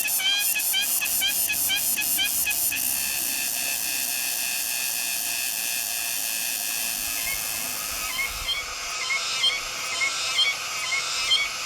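Insects singing: a dense, high buzzing drone that pulses rapidly for the first few seconds. From about eight seconds in, a series of sharp chirps repeats roughly twice a second over the buzz.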